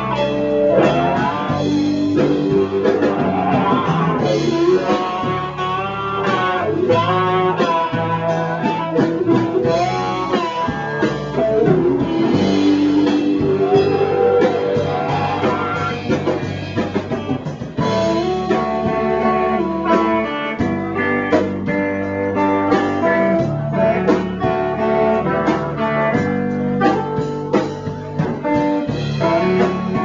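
Live blues music played by a band, led by guitar.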